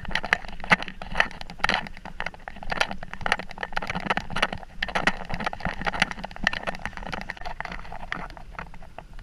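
Rapid, irregular clicking and scraping of handling noise from a camera carried by someone walking, with footsteps mixed in. The clicks thin out and quieten near the end.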